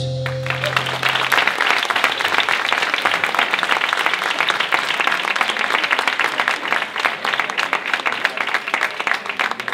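Audience applauding, many hands clapping steadily; a low note of the backing music dies away in the first second or so.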